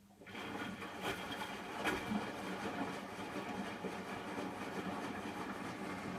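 Hotpoint washing machine running mid-cycle: a steady, dense mechanical running noise that starts abruptly just after the beginning, with a couple of sharp knocks in the first two seconds.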